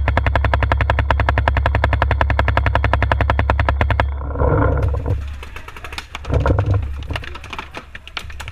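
Electronic paintball marker firing a rapid, even string of shots, about a dozen a second, that stops about four seconds in. After that come two short shouts and scattered, fainter paintball shots.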